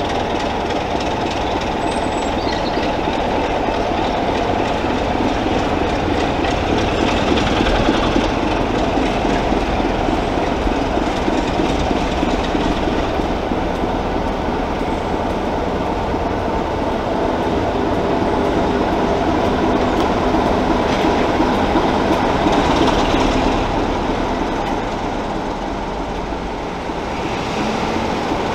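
Diesel locomotive running with a train, a loud, steady, continuous engine sound that eases briefly near the end.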